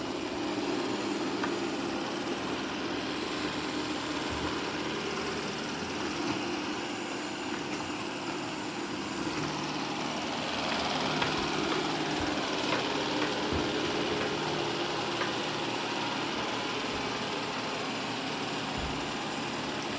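Shark IQ RV1000S robot vacuum running as it cleans, a steady motor hum with brush whir and a few faint knocks.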